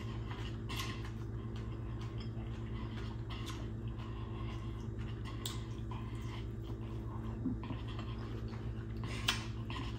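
A person chewing chicken off the bone, close to the microphone, with scattered short wet mouth clicks and smacks, the sharpest one near the end. A steady low hum runs underneath.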